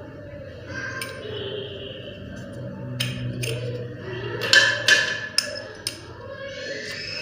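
A series of sharp knocks and clicks, about seven in a few seconds, loudest a little past the middle, typical of hard pipe fittings and tools being handled during basin plumbing work.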